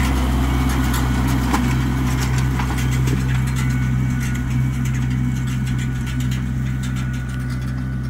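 40 hp LS XR4040 diesel tractor engine running steadily under light load while pulling a hay rake, with scattered light clicks and rattles. It grows slightly fainter as the tractor pulls away.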